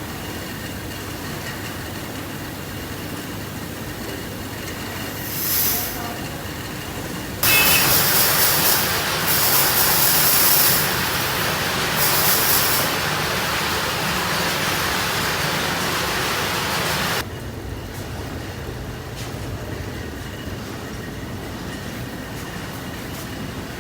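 Steady machine noise with a loud hiss that starts abruptly about seven seconds in and cuts off suddenly about ten seconds later.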